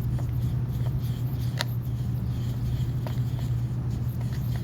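Steady low background hum, with a faint tick about one and a half seconds in.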